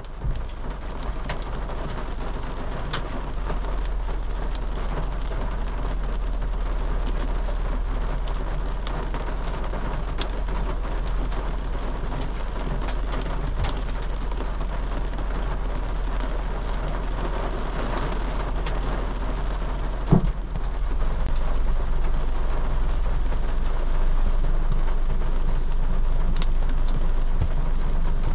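Heavy rain mixed with small hailstones beating down: a steady hiss full of sharp, irregular ticks from the stones striking. About two-thirds of the way through there is a single thump, after which the downpour is a little louder.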